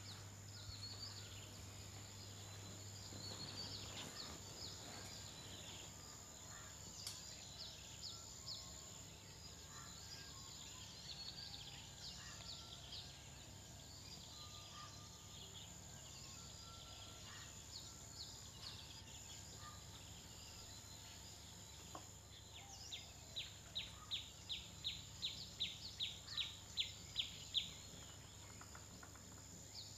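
Faint outdoor ambience of small birds chirping over a steady high whine. Near the end comes a run of about a dozen sharp repeated call notes, two or three a second, growing louder.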